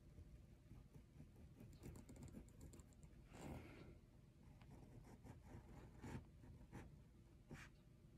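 Faint scratching of a pen tip on paper as cursive lettering is traced, in short strokes with pauses and a longer stroke about three and a half seconds in.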